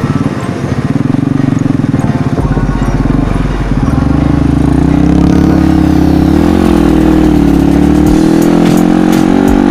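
Mini trail motorcycle engine running while riding, its note climbing and getting louder about halfway through, then holding steady.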